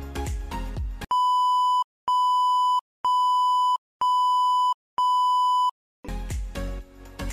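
Background music, broken off about a second in by five identical steady electronic beeps, about one a second, each just under a second long with silence between; the music returns near the end.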